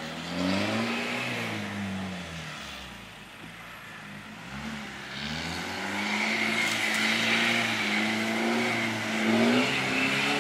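Off-road jeep engine revving hard over dirt mounds. It rises and falls about a second in, then revs up again from about five seconds and holds high, loudest near the end.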